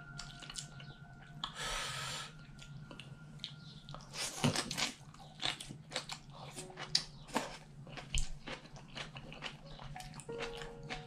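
Close-up eating sounds of a man eating instant kimchi ramen noodles with chopsticks: wet chewing and mouth smacks, an irregular run of small clicks.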